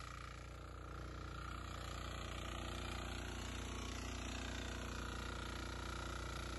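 Diesel engine of a walk-behind power tiller running steadily under load as its central rotary tines churn through paddy-stubble soil, getting a little louder about a second in.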